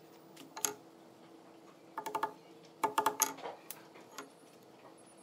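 Hammer tapping metal on a wooden panel, with a short metallic ring to each blow: one tap about half a second in, then two quick runs of several light taps about a second apart.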